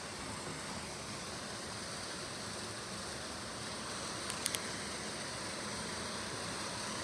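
Steady background noise hiss, with three quick faint clicks about four and a half seconds in.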